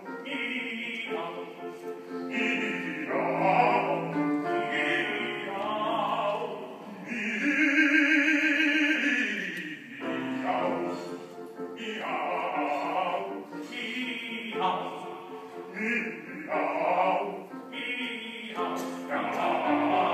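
Male operatic singing in an opera buffa number, with piano accompaniment. About seven seconds in, the voice holds a long note with wide vibrato for a couple of seconds before going on with the phrase.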